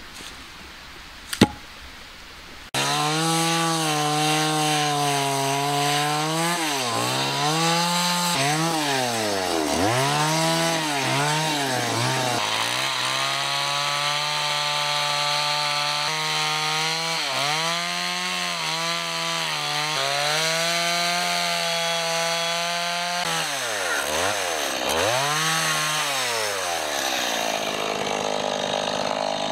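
A single sharp knock, then a Stihl two-stroke chainsaw starts abruptly and rips lengthwise along the grain of a squared log under load. Its engine note dips and recovers over and over as the throttle is eased and reapplied, and it sinks toward idle near the end.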